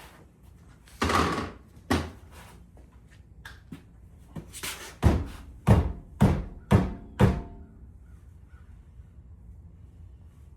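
Hard knocks from work on a car wheel as it is being taken off: a dull thunk about a second in and another at two seconds, then six sharp knocks about half a second apart that stop at around seven seconds.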